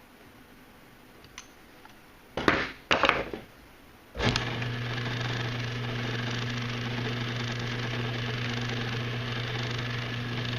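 Two loud clacks, then the Ilco 017 key duplicator's electric motor switches on about four seconds in and runs with a steady hum.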